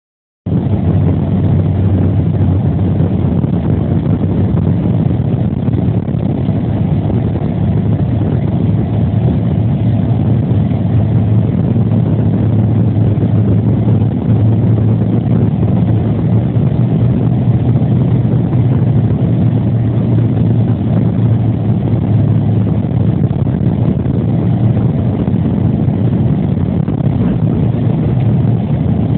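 A car being driven: steady engine and road noise with a constant low hum, starting about half a second in and holding evenly throughout.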